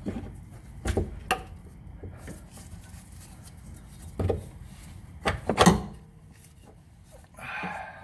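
A handful of irregular metal knocks and clunks of tools and parts as the top mounting bolt of a rear shock absorber is worked loose, the loudest pair just before six seconds in, followed by a short scrape near the end.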